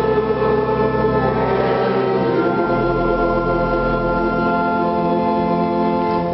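Organ playing slow sustained chords over a deep bass note that changes partway through, the last chord released at the very end.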